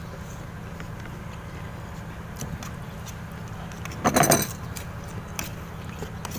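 A metal lid lifted off a steel cooking pot, clattering for about half a second a little after four seconds in, with a few light clinks of dishes before and after it.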